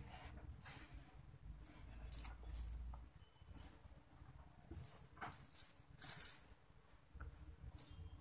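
Thin beading wire being twisted by hand around crystal beads: faint, irregular scratchy rustles with a few small clicks of beads and wire.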